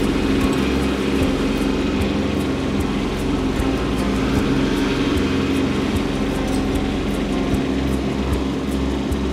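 Kubota B2601 compact tractor's three-cylinder diesel engine running steadily under load while it drags a landscape rake through snow and gravel, with faint clicks throughout.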